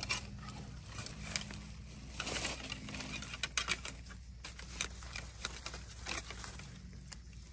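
Dry bamboo leaf litter and twigs crackling and rustling, with scattered light clicks that cluster about halfway through.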